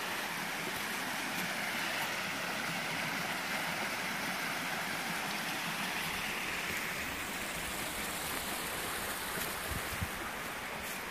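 Small mountain stream rushing steadily over rocks and little cascades, easing somewhat near the end.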